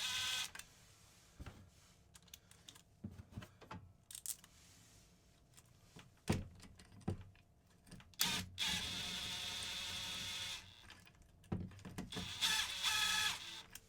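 A battery power driver spins in short spurts: briefly at the start, for about two seconds some eight and a half seconds in, and for about a second near the end. It is running screws into a motorcycle engine's clutch cover. Between the spurts come scattered clicks and knocks of tools and screws on metal.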